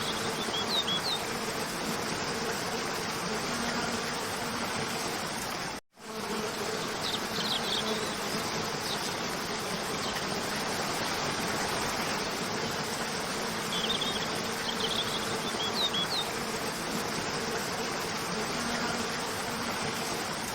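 Waterfall rushing steadily, with small bird chirps in short clusters three times. The sound cuts out abruptly for an instant about six seconds in.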